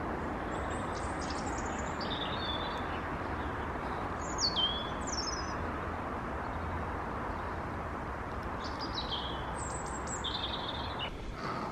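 Garden birds singing in short chirping phrases, one with a falling whistle about four and a half seconds in, over a steady outdoor background hiss.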